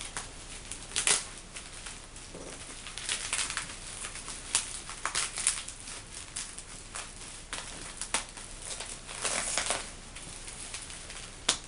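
A heavily taped parcel being torn and cut open by hand: irregular bursts of crinkling, crushing and tearing packaging.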